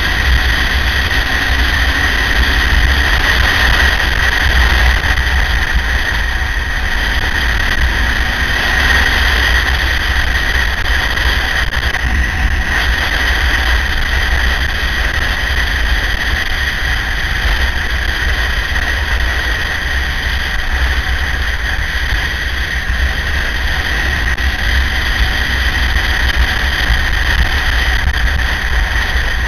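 Riding a KTM 950 motorcycle at a steady cruise: heavy wind rumble on the on-board microphone, with the engine's steady drone and a constant high whine over it. Speed and engine note stay even throughout, with no revving or gear changes.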